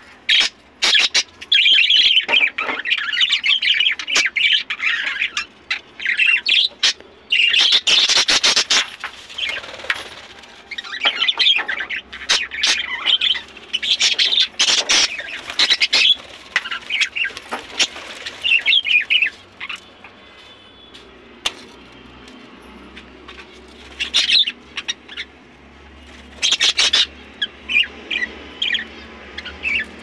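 A flock of budgerigars chattering, with rapid warbling and sharp squawks, dense for about the first twenty seconds, then only a few short bursts near the end.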